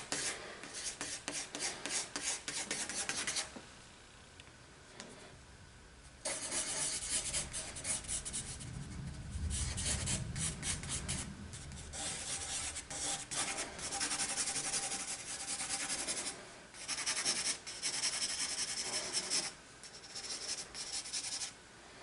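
Graphite pencil scribbling on sketchbook paper in quick circular shading strokes: a rapid, scratchy rubbing that comes in spells with short pauses and stops shortly before the end.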